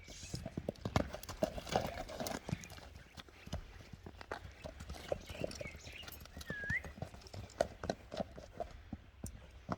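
Horse's hooves clip-clopping: an irregular run of hoof beats.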